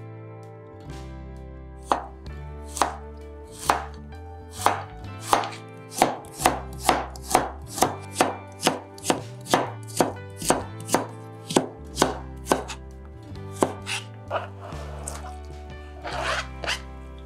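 Kitchen knife chopping new burdock root into thin sticks on a cutting board, about two even strokes a second, with soft background music underneath. Near the end comes a short scraping rustle as the cut pieces are slid off the board into a colander.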